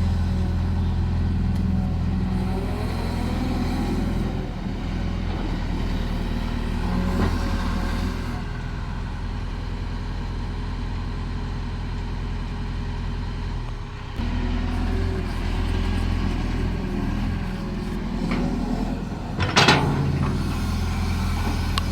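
Caterpillar excavator's diesel engine running under work, its low note easing off for a stretch and then picking back up. A short, loud burst of noise comes near the end.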